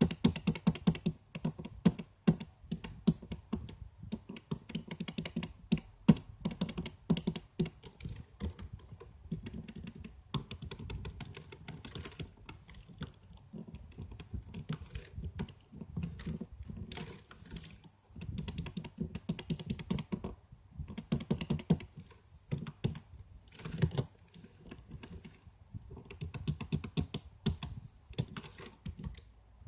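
Typing on a computer keyboard: rapid runs of key clicks in bursts, broken by short pauses.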